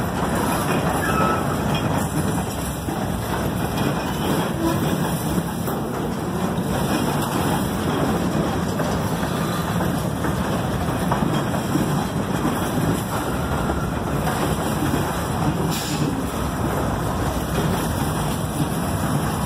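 A freight train of covered hopper cars rolling steadily past, with the continuous rumble and rattle of steel wheels on the rails.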